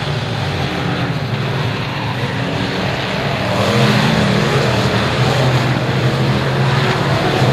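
Dirt-track B-Mod race car engines running as the cars circle the track, with a steady engine drone that rises in pitch and gets louder about halfway through as a car comes closer.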